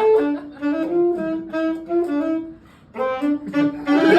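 Saxophone playing a melody of short held notes, with a brief pause for breath about two and a half seconds in. Audience laughter breaks in at the very end.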